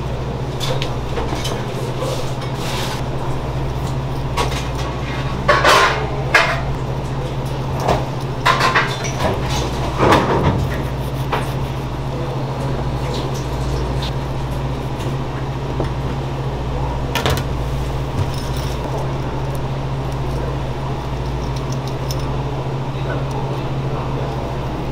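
Scattered clinks and knocks of metal pans and utensils being handled, mostly in the first half, over a steady low machine hum.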